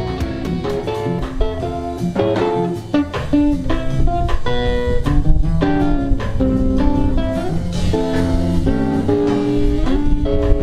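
Live instrumental band music: an electric guitar plays a melodic lead over electric bass and a Ludwig drum kit.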